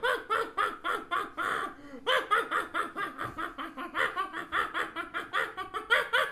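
A person's voice doing a cackling, mocking laugh for a cartoon parrot, a fast run of repeated "ha-ha" syllables with a brief break about two seconds in.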